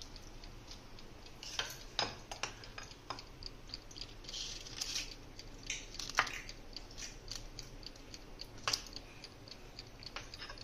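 A metal spoon scooping cake batter from a glass bowl and dropping it into paper liners in a metal muffin tray: soft scrapes with scattered clinks and taps, a few of them sharper.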